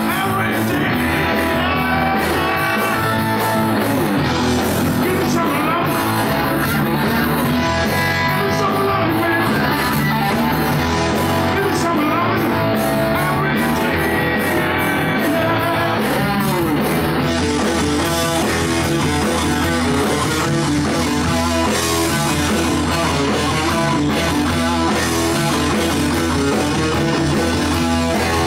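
Live rock band playing loud: distorted electric guitar over bass guitar and a drum kit. A little past halfway the cymbals grow steadier and brighter.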